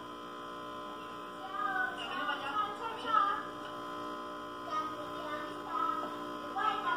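Steady electrical hum, with girls' voices singing and calling out over it at times.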